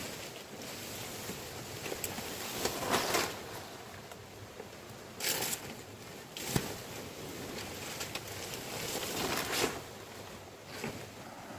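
Fresh palm fronds rustling and swishing as they are handled and shifted, in several separate swishes, with a short knock about six and a half seconds in.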